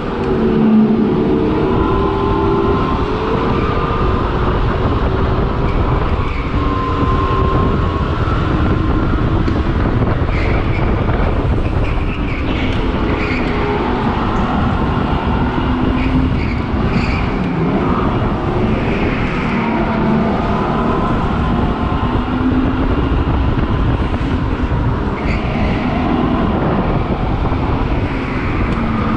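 Synthetic petrol-engine sound played through speakers in the headrest of an electric go-kart, its pitch rising and falling with the throttle through the corners, over a steady noisy rush.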